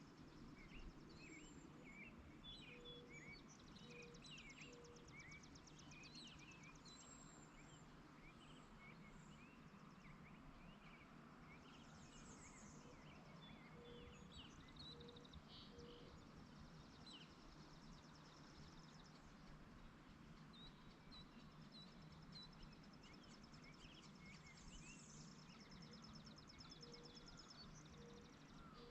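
Faint rural outdoor ambience: several birds chirping and trilling throughout, with a low call of three short notes about a second apart heard three times. A steady low hum runs beneath.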